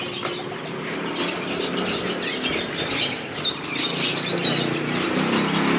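Caged birds chirping, many short high-pitched chirps overlapping.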